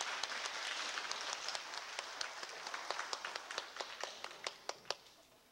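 Audience applauding, with sharp individual claps standing out from the general clapping; the applause dies away toward the end.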